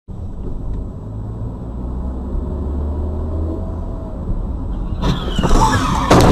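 Car engine and road rumble heard from inside a moving car through a dashcam microphone. About five seconds in the sound turns louder and harsher, with a run of sharp knocks.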